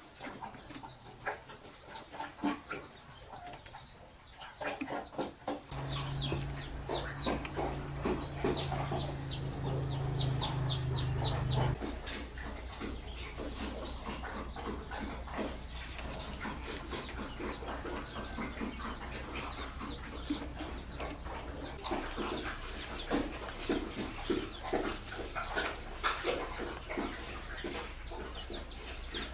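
Chickens clucking, with runs of quick, high, repeated peeps. A low steady hum sets in about six seconds in, and a hiss joins about three quarters of the way through.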